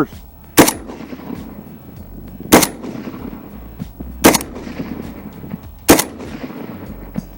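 Palmetto State Armory AK-47 rifle firing Norinco 7.62x39 steel-cased ammunition in slow, aimed single shots for a group: four shots about one and a half to two seconds apart, each with a short echo trailing off.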